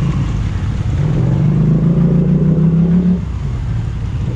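Polaris Sportsman 850 ATV engine revving under load in a deep water crossing, its pitch climbing for about two seconds and then dropping back about three seconds in.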